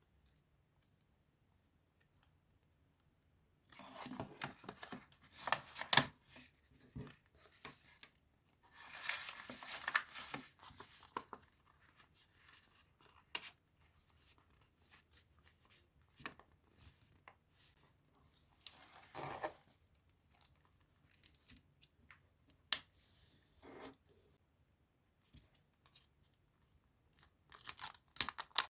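Scrapbooking supplies being unpacked by hand: plastic and paper packaging crinkling and tearing, with small sharp clicks and taps, in irregular bursts that begin a few seconds in.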